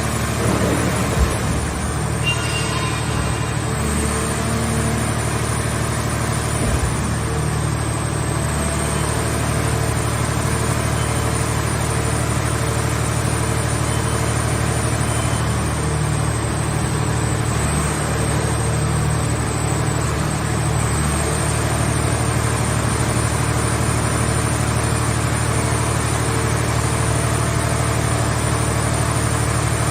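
Scrap car baler's engine and hydraulic power unit running steadily, with a thin high whine above it. Two brief knocks sound in the first seven seconds.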